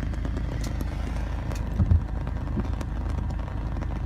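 Steady low rumble of a car's road and engine noise heard from inside the cabin while driving, with a short low thump about two seconds in.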